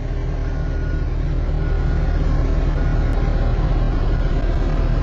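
Engine of a Nicolas self-propelled modular transporter running steadily, a low drone that gets a little louder over the first two seconds and then holds.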